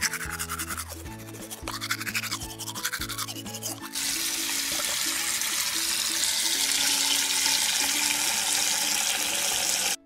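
A toothbrush scrubbing in quick strokes for about four seconds, then a steady rush of running tap water that cuts off suddenly near the end, over background music.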